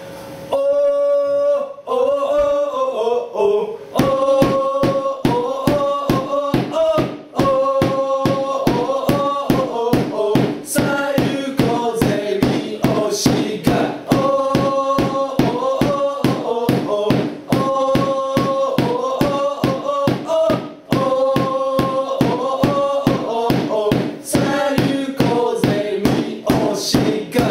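Football supporters' chant: a melody over a fast, steady drumbeat, with short breaks in the phrase twice.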